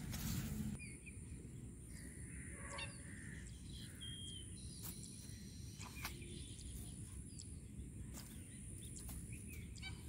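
Quiet outdoor background: a steady low rumble with a few faint bird chirps and scattered light clicks; a brief louder rustle in the first second.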